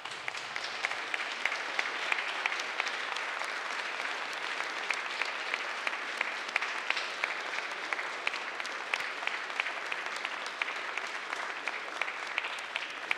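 Applause from a chamber full of legislators: many hands clapping at a steady level, easing slightly near the end.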